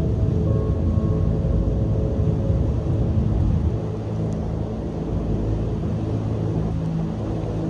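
Strong coastal wind buffeting the microphone in a deep, steady rumble, with the wash of surf beneath it; the rumble eases slightly about four seconds in.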